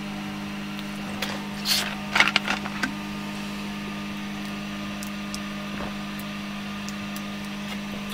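A person eating a chicken fajita, with a few short rustles and clicks about one to three seconds in, over a steady low electrical hum.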